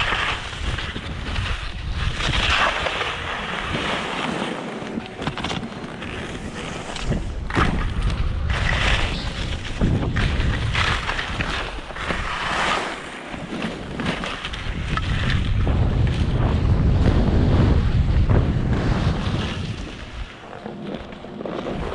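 Skis scraping and swishing over packed snow in repeated surges as they turn, with wind buffeting the camera microphone in a low rumble that is heaviest toward the end.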